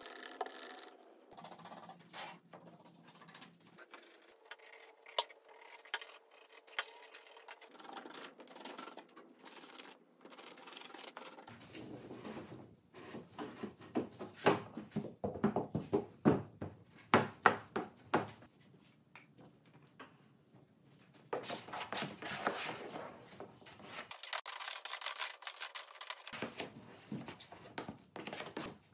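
Epoxy gluing work: a wooden stir stick scraping around a plastic mixing cup as resin and hardener are mixed, and a plastic spreader scraping epoxy across plywood. A run of sharp taps and knocks comes in the middle.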